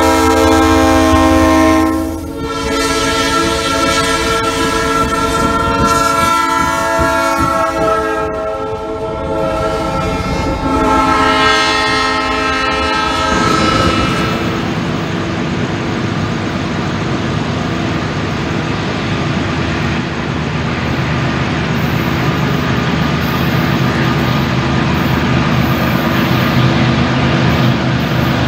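Diesel locomotive's multi-chime air horn sounding in several long blasts, its chord shifting in pitch between blasts as the train passes. About halfway through the horn stops and a steady rumble of a diesel train running on the track takes over.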